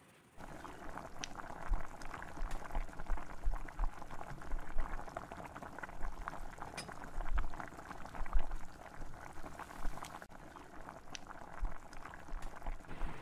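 Red chili birria broth boiling in a pan, a steady bubbling crackle with occasional low bumps.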